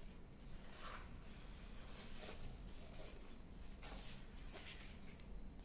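Paper sheets and a satin ribbon being handled as the ribbon is threaded through punched holes and tied: a few short, soft rustles.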